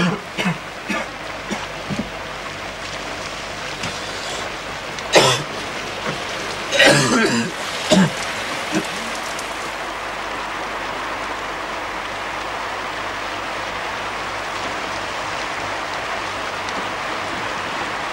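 A man gives a series of harsh coughs in the first half, over the steady hiss of rain falling, which carries on alone after the coughs stop.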